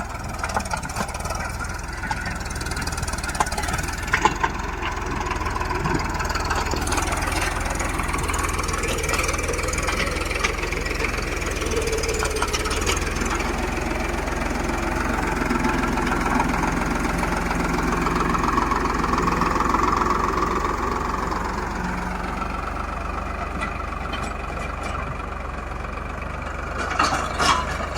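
Farmtrac 6055 tractor's diesel engine running steadily, its note swelling and easing a little, with a few sharp clatters near the end.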